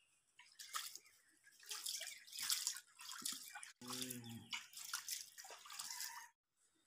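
Wet squelching, rubbing and splashing as a freshly plucked chicken is worked over by hand with water, in irregular bursts. A brief low hum-like sound comes about four seconds in.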